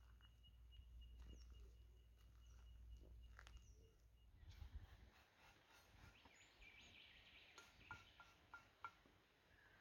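Near silence: faint outdoor ambience with a low rumble and a thin steady high whine for the first few seconds. Then come faint bird chirps, including a quick run of about five short notes near the end.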